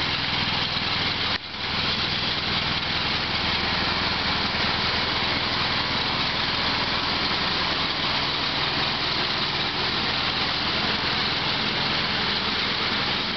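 John Deere 115 riding lawn tractor's engine running steadily as it drives along, with a brief dip in level about a second and a half in.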